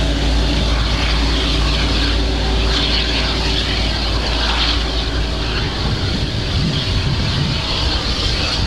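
Boeing 777-200ER's twin Rolls-Royce Trent 895 turbofans running at taxi power as the airliner turns onto the runway: a steady low rumble with a jet hiss over it.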